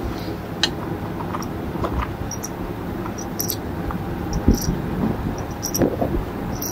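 Scattered light clicks and clinks of handling: brass .308 cartridges picked out of a plastic ammo box and the rifle scope being adjusted, with a soft thump about halfway through, over the steady hum of a large fan.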